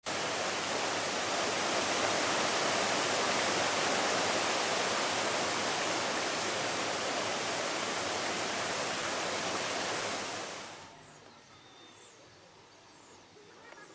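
Small rocky waterfall rushing steadily. It cuts off about ten and a half seconds in to quiet outdoor ambience with a few faint high chirps.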